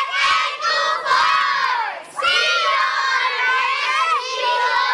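A group of children shouting and cheering together, with a short break about two seconds in.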